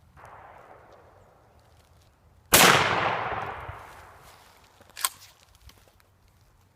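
A single gunshot: a sudden loud crack that rolls away over about two seconds. A softer blast fades out at the start, and a short sharp click follows about two and a half seconds after the shot.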